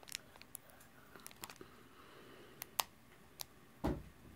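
Scattered small clicks and crinkles of a Pokémon booster pack's foil wrapper being worked open by hand, with a soft thump near the end.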